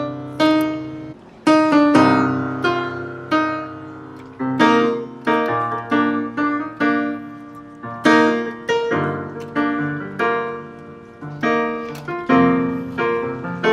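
Piano playing a slow ballad interlude, with struck chords and single melody notes, each ringing and fading before the next.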